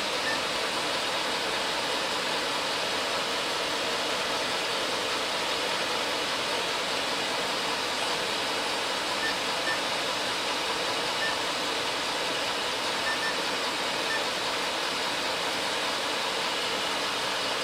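Steady rushing hiss of a pickup truck cab's climate-control blower with the engine running, with a few faint short beeps partway through.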